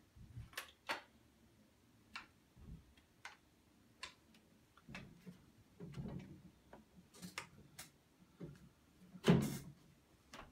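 Scattered clicks and light knocks of an IWI X95 rifle's barrel assembly and rail being worked into its polymer chassis, metal against plastic, with handling rustle between them and one louder clunk about nine seconds in.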